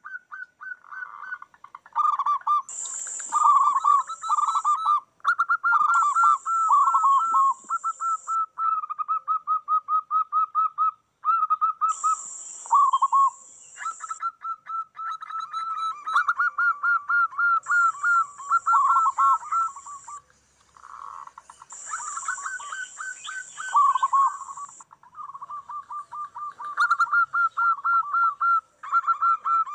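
Several zebra doves (perkutut) cooing and answering one another, their quick rippling coo phrases overlapping almost without a break. A high hiss comes and goes every few seconds in stretches of one to two seconds.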